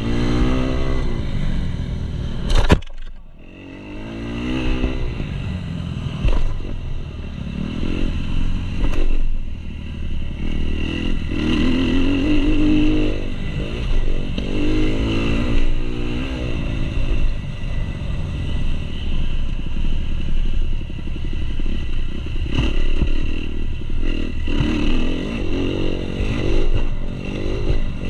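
Kawasaki KX250 four-stroke single-cylinder motocross engine heard up close from the bike, revving up and down as the rider opens and closes the throttle through the gears. There is a sharp knock about three seconds in, after which the engine goes quiet for a moment before picking up again.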